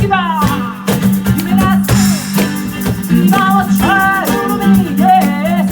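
Live band playing an upbeat soul song, led by guitar, with pitched lines sliding up and down over a steady beat.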